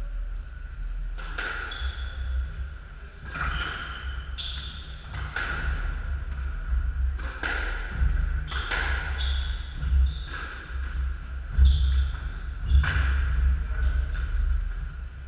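Squash rally: the ball is struck by racquets and slams off the court walls about once a second, each hit sharp and ringing in the enclosed court. Low thuds of the players' footsteps on the wooden floor run underneath.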